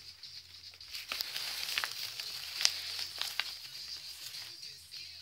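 Paper rustling and crinkling as a wrapped gift is handled and opened, with several sharp crackles.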